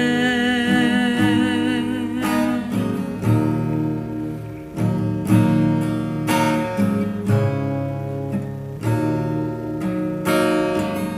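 A man's sung note, held with vibrato, fades out about two seconds in over acoustic-guitar backing music. The guitar then carries on alone as a strummed instrumental interlude.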